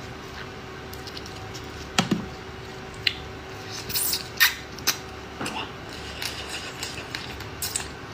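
Eating raw-marinated crab legs close to the microphone: wet squishes and sucking, with scattered sharp clicks of crab shell.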